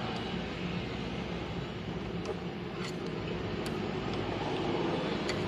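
Steady background hum and hiss with a few faint, sharp clicks of metal parts being handled as disc-brake parts are taken off.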